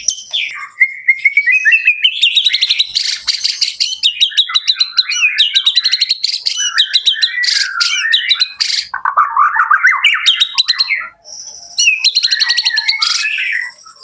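White-rumped shama (murai batu) singing a long, varied song of rapid trills and whistled phrases, high-pitched, with a brief pause about eleven seconds in.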